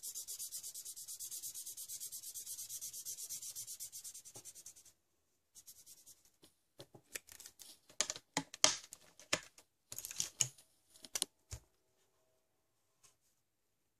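Felt-tip marker colouring in on paper: fast, even back-and-forth scratchy strokes, about six a second, that stop about five seconds in. Then comes a run of irregular, louder scratches and taps, ending with a low knock.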